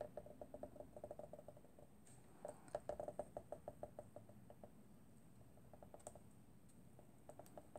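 Faint, rapid ticking and scratching of a Foil Quill pen's thick nib dragged slowly along a stamped line on paper. It comes in two runs over the first four seconds, then a few scattered ticks.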